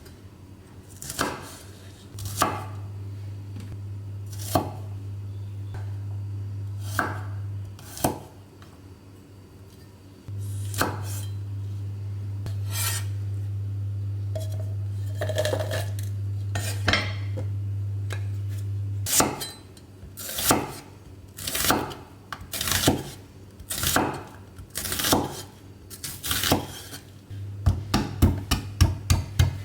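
Kitchen preparation sounds: a knife striking a cutting board and utensils knocking against dishes, in single sharp knocks a second or two apart that turn into quick chopping, about four strokes a second, near the end. A low steady hum comes on twice for several seconds.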